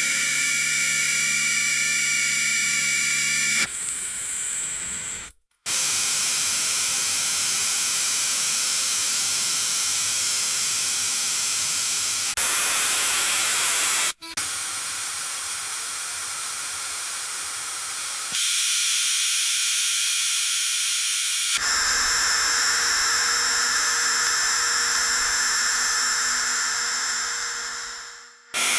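Old radiator hissing: a steady hiss in several stretches that change tone every few seconds, some carrying a faint whistle. It breaks off briefly about five and fourteen seconds in.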